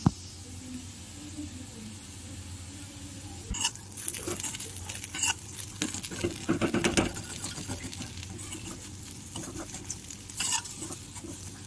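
Potato slices sizzling in oil in a metal kadai while a utensil stirs them, scraping and clinking against the pan. The stirring is busiest from about three and a half to seven and a half seconds in and comes again briefly near the end. There is a sharp click at the very start.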